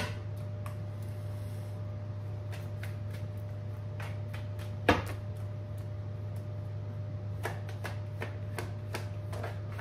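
Tarot cards being shuffled by hand: a scattered run of soft card clicks and riffles, with one louder snap about five seconds in.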